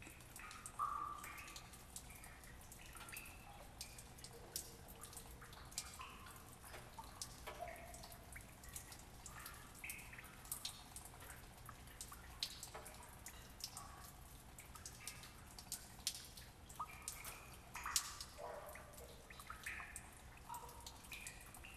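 Faint water drops falling irregularly from overhead pipes onto a wet floor, each drop a short plink, a few every second.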